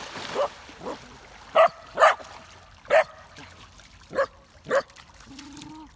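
A dog barking, about seven short, sharp barks spaced half a second to a second apart.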